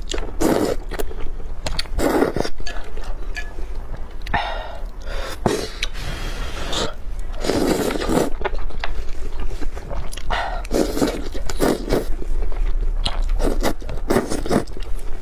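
A person slurping noodles from a bowl of spicy broth in repeated noisy pulls, with wet chewing in between.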